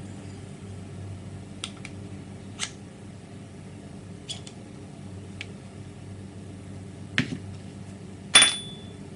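Light metallic clicks and taps from an aluminium airsoft 40mm Moscart grenade shell being handled and twisted together, with a louder metal clack that rings briefly near the end.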